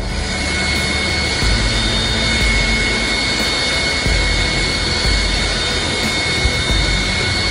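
Jet airliner's engines running with a steady high whine over a broad rush of noise.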